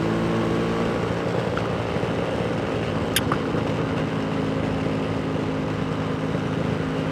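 Yamaha RX-King 135 cc two-stroke single-cylinder motorcycle engine running at steady revs, heard from the rider's own bike. A brief sharp click about three seconds in.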